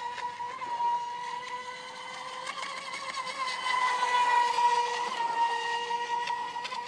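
A motorboat engine running at a steady high pitch, getting louder about four seconds in, with a few sharp clicks over it.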